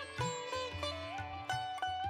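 Background instrumental music in an Indian classical style: a plucked string melody with sliding, bending notes over a steady drone, with low drum strokes underneath.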